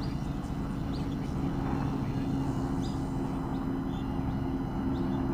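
Steady low hum with a constant tone, over which small birds give short, high, falling chirps about once a second.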